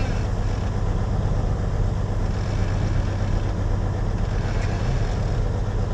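Farm diesel engine idling with a steady low drone.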